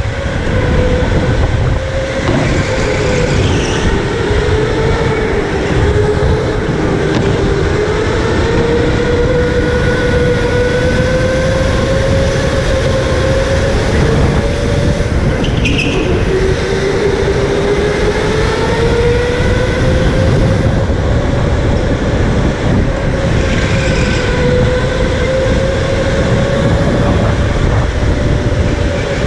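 Electric go-kart motor whining as it drives, its pitch dipping and climbing again with speed several times, over a steady low rumble.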